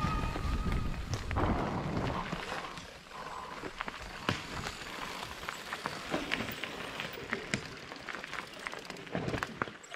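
A Focus SAM² electric mountain bike ridden over a forest trail: rolling tyre noise over leaf litter, twigs and gravel, with many small crackles and clicks throughout. There is more wind and rumble in the first few seconds.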